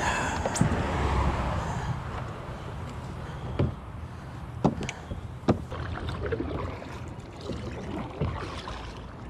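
Water washing around an Ascend 133X kayak, strongest in the first two seconds. Four sharp knocks come on the hull through the middle and near the end.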